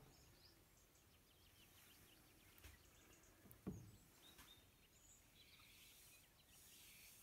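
Near silence: room tone, with one faint short tap about three and a half seconds in.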